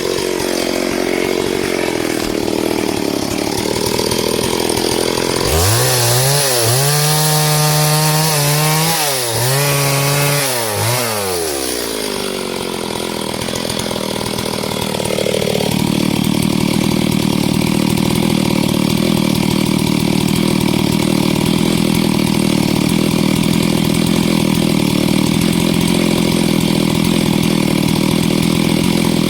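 Chainsaw cutting wood. Its engine pitch rises and dips several times in the first half, then it runs steadily under load through a long cut.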